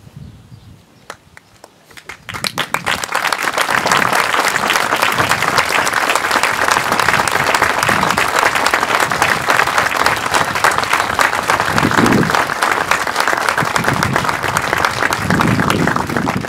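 An audience applauding: a few scattered claps, then steady applause from about two seconds in, dying away near the end.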